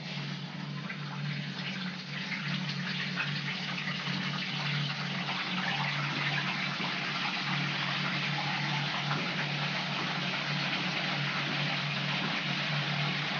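Salted fish frying in hot vegetable oil in a pan: a steady sizzle that builds over the first couple of seconds as the fish goes in, then holds. A low steady hum runs underneath.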